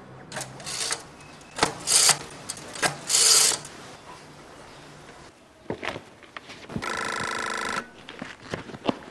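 Rotary telephone dial being turned and let spin back several times, a run of short scraping, ratcheting strokes. About seven seconds in, a telephone rings once for about a second.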